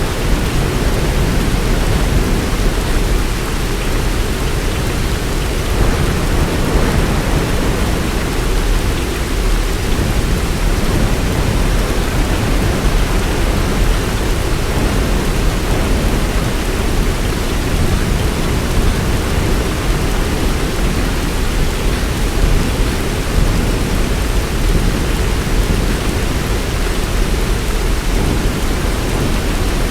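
Heavy rain pouring steadily, a dense even hiss with a continuous low rumble underneath.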